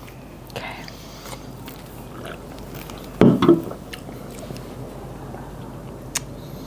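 People sipping and swallowing from soda cans, with small knocks of the cans being handled on a table. A louder, short gulp or mouth sound comes about three seconds in.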